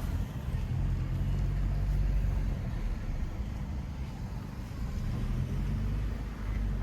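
Car engine and road rumble heard from inside the cabin while driving slowly, a steady low drone.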